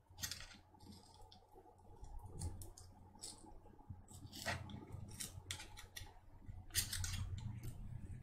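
Metal prying tool scraping and clicking against the stuck-down metal plate on the back of a MacBook Pro trackpad, prying it up. The sound comes as short, irregular scrapes and clicks, with a cluster of them after about four seconds.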